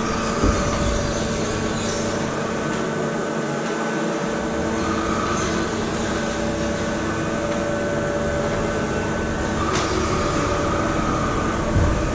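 Hartford PBM135A CNC horizontal boring mill running, its spindle turning at around 1000 RPM while the axes and B-axis rotary table move: a steady mechanical hum with several whining tones. A low thump comes about half a second in and another near the end.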